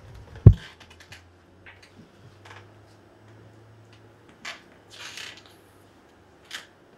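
Laptop keyboard and trackpad being worked: scattered faint clicks and short rustles, with one loud low thump about half a second in, over a low hum.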